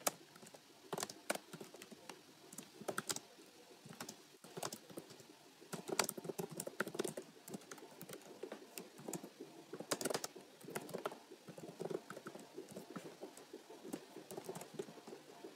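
Typing on a computer keyboard: a steady, irregular run of key clicks, several a second, with a few louder keystrokes.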